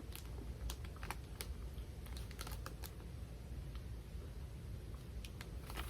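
Faint, irregular crunching clicks of someone chewing a crispy wafer bar, with a small cluster of crunches in the middle.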